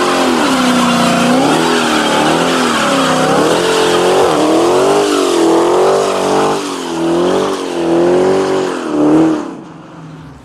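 Muscle car's V8 engine doing a burnout. The engine is held at high revs that rise and fall over and over as the tyres spin, with tyre noise underneath. The sound drops away sharply about nine and a half seconds in.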